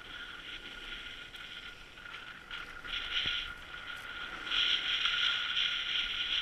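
Skiing down a groomed run: edges scraping and hissing over packed snow, swelling briefly about three seconds in and growing louder again from about halfway, as the turns bite.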